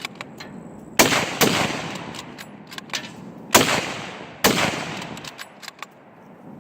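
Rifle shots from two shooters firing rapidly side by side: two shots close together about a second in, and two more a few seconds later, each followed by a long fading echo.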